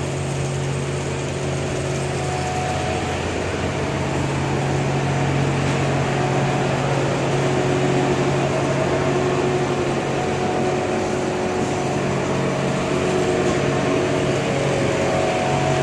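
Steady hum of mechanized laundry machinery running: a constant low drone with faint higher tones that come and go.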